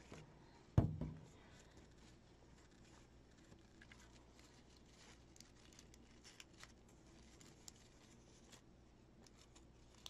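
Faint rustling and crinkling of paper as a tightly rolled paper flower is handled and pressed onto its glued paper base circle, with a single thump about a second in.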